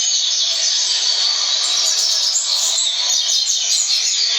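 Coleiro (double-collared seedeater) singing a fast, unbroken run of high chirping notes.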